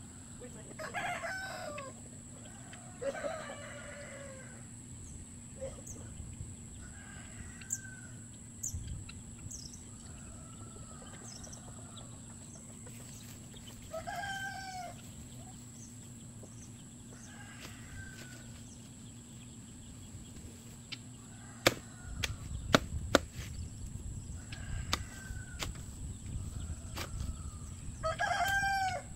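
Chickens calling, with a rooster crowing several times. A few sharp knocks come a little past two-thirds of the way through.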